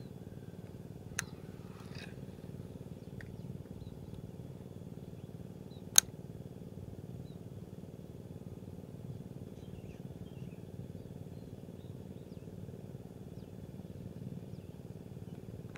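Steady low outdoor rumble, broken by two sharp clicks, a small one about a second in and a much louder one about six seconds in, with a few faint high chirps.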